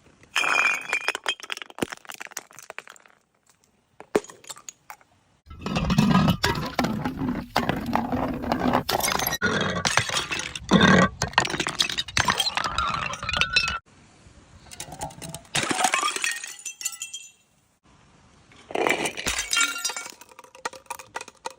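Glass bottles breaking: dense runs of sharp crashes and clinking, ringing shards, in four separate bursts with short quiet gaps between them.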